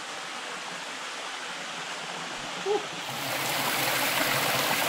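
River water rushing over rocks in a narrow rock gorge, a steady rush that gets louder and brighter about three seconds in.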